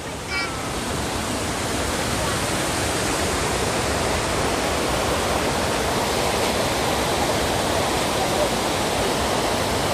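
Waterfall: a steady, even rush of falling water that grows a little louder over the first couple of seconds, then holds level.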